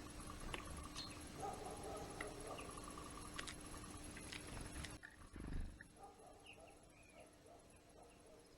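Faint outdoor ambience with scattered short, high chirps and calls of small garden birds. There is a low thump about five and a half seconds in.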